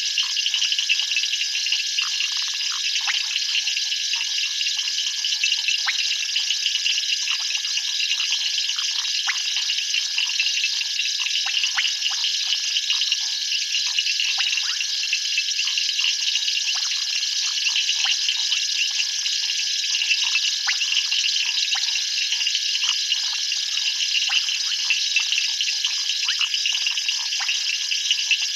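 Night chorus of calling insects: a dense, steady, high shrilling with one constant tone under it and many short chirps scattered throughout.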